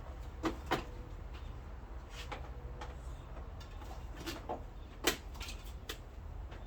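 Scattered knocks and clunks of things being handled and shifted about, two close together near the start and the loudest about five seconds in, over a steady low hum.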